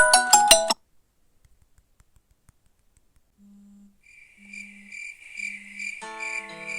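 Phone ringtones: a marimba-style ringtone cuts off in the first second, then after a pause of about two and a half seconds a new electronic ringtone starts. It opens with a low beep about once a second and a high chirping tone pulsing about three times a second, and a melody joins in near the end.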